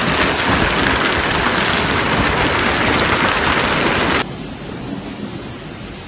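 Loud steady rushing noise that cuts off abruptly about four seconds in, leaving a quieter hiss.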